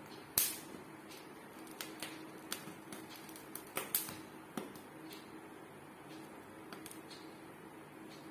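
Corn cob roasting over an open gas burner flame, its kernels giving scattered sharp crackles and pops, a cluster of them around the middle, over a steady low hum.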